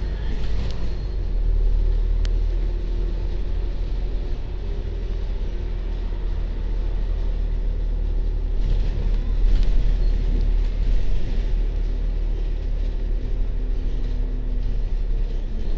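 Double-decker bus's engine and road noise heard from inside on the upper deck, a steady low rumble as it drives through town, with one sharp click about two seconds in.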